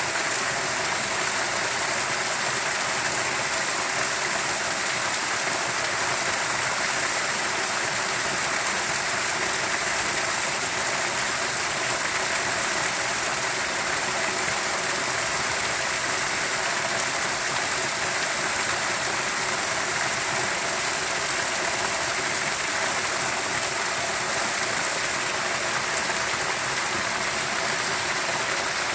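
Steady rushing of a flowing stream, an even hiss of water without changes.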